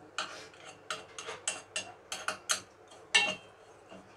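A metal spatula scraping and clinking irregularly against a stainless steel pan while raw Gobindobhog rice is stirred and lightly fried in ghee. The loudest knock comes a little past three seconds in.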